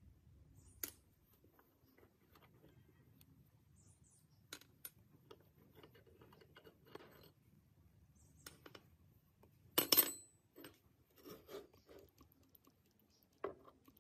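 Small metal parts being handled, giving scattered light clinks and taps, with a louder clatter about ten seconds in and another clink near the end.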